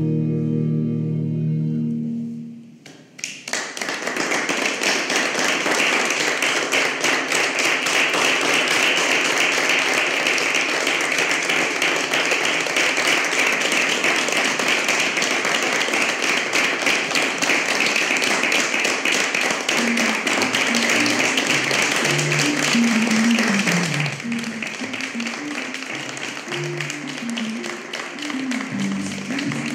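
Sustained music fades out in the first few seconds, then a small audience claps steadily. Near the end the clapping thins and music with a melody plays under it.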